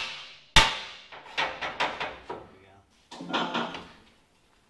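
Hammer blows on a steel truck frame: a sharp ringing clang about half a second in, then several lighter knocks.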